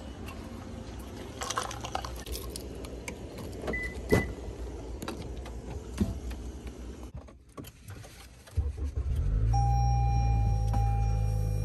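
Toyota Camry being got into and started: clicks and a sharp knock from the door handle and door, with two short high beeps, then, after a quieter moment, the engine starts about nine seconds in and idles steadily, with a steady tone over it.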